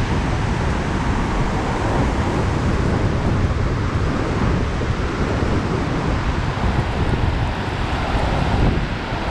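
Steady, loud rushing of Iguazu Falls' waterfalls and the rapids below them, heard up close.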